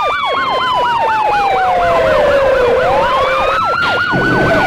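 Two emergency sirens on a Code 3 run sounding together: a fast yelp sweeping up and down about five times a second, over a wailing siren that winds down in pitch and then rises again near the end.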